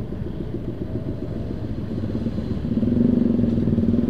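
Motorcycle engine running while riding, getting louder about three quarters of the way through as it pulls harder.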